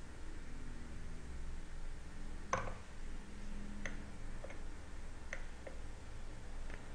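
A handful of sharp, isolated clicks from a computer mouse and keyboard being operated, the loudest about two and a half seconds in, over a faint steady background hum.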